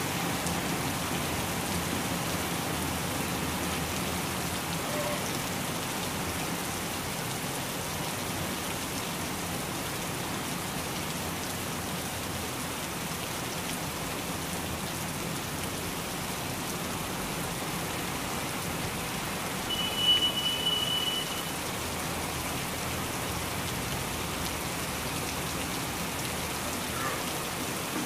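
Steady heavy rain falling on trees and foliage, a continuous even hiss. About two-thirds of the way through, a single high steady note sounds for about a second and a half over the rain.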